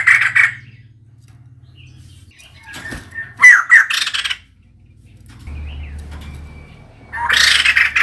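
Female white-crested laughingthrush giving harsh, chattering calls in bursts: one tails off just after the start, a louder one comes about three seconds in, and another near the end.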